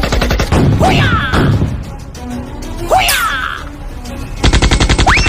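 Cartoon machine-gun sound effects: a rapid burst of automatic fire at the start and another near the end, with two swooping effects between them, over music.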